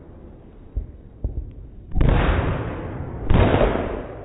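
Aerial fireworks going off: a couple of short pops, then two loud bursts about a second and a half apart, each trailing off after the bang.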